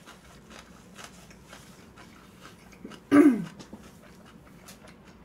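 Light clicks and taps, as of chopsticks and a bowl while eating. About three seconds in comes one short, loud call that drops in pitch.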